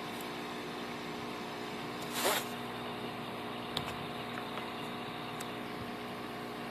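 Steady mechanical hum of running aquarium equipment, with a short burst of noise about two seconds in and a faint click a little later.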